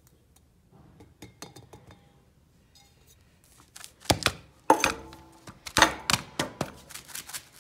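Glass marbles and sand shaken together in a plastic graduated cylinder to mix them. A few faint clicks come first, then from about four seconds in a run of loud, irregular clacks and rattles as the marbles knock against each other and the cylinder.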